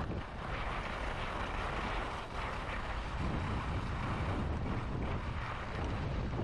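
Wind buffeting the microphone over skis sliding and scraping on snow during a downhill ski run: a steady rushing noise with a low rumble.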